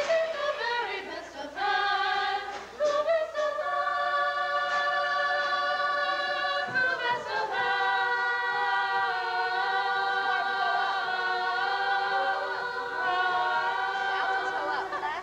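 A chorus of voices singing together: shorter changing notes at first, then long held notes from about four seconds in, sliding to a new chord about seven seconds in.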